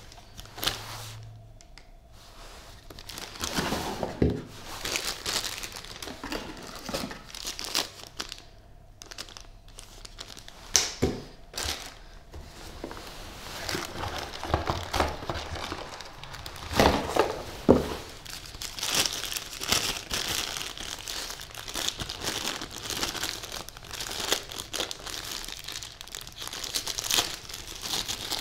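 Packaging being unwrapped and handled: irregular crinkling and rustling, with a few sharper knocks about eleven and seventeen seconds in.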